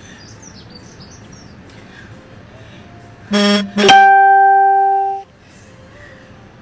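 A brief, loud musical sound: a short buzzy tone, then one ringing, plucked-sounding note that cuts off abruptly after about a second. Behind it, steady wind noise and faint bird chirps.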